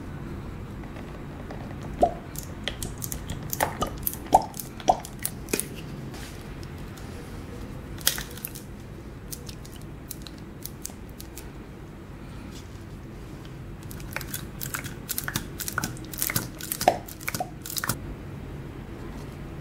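Thick hot sauce squeezed from a plastic squeeze bottle into a plastic tub: sticky squirts, sputters and plastic crackles in two bursts of a few seconds each, over a low steady background hum.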